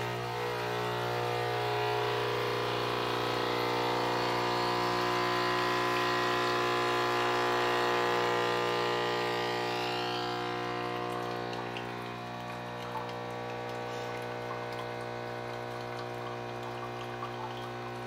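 Casabrews 5700Gense espresso machine's pump buzzing steadily as it pulls a double shot of espresso into the mug. It grows a little quieter about twelve seconds in.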